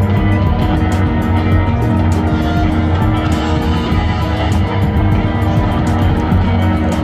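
Loud rock music with guitar and a steady drum beat.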